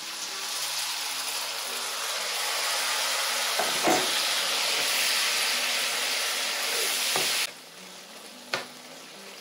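Water from a kettle poured into a pan of carrot strips frying in oil, hitting the hot oil with a loud, steady sizzle and hiss that builds up and then stops abruptly about seven seconds in. A knock about four seconds in and a short click near the end.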